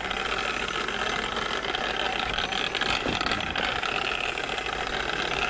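Two-stroke gas engine of a Losi 5IVE-T large-scale RC truck running on a dirt track: a steady, buzzy engine noise.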